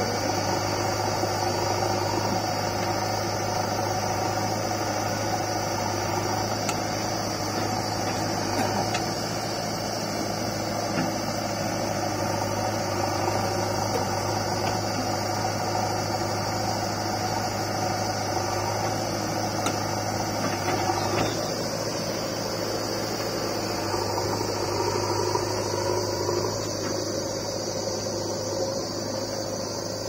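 Heavy diesel engine idling steadily, a low even hum.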